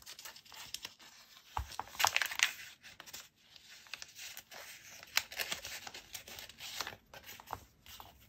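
Paper and card rustling and scraping as hands handle a handmade junk journal's pages and the string tie of an envelope closure, with scattered light clicks. The loudest rustle comes about two seconds in, another near five seconds.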